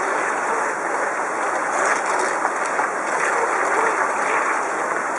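Steady rush of river water spilling over a low weir, mixed with the churning splash of a small radio-controlled boat's propeller cutting through the water close by.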